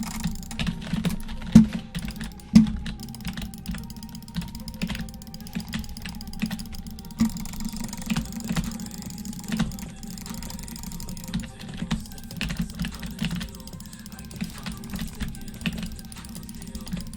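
Quick, irregular clicking, many clicks a second, with two louder clicks about one and a half and two and a half seconds in.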